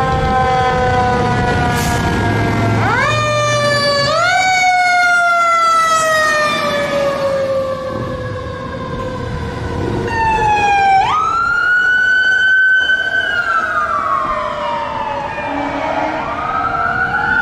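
Fire apparatus siren during an emergency response. It is swept sharply up in pitch and then left to wind slowly down, twice about three to four seconds in and again about ten seconds in. A second siren pattern comes in near the end.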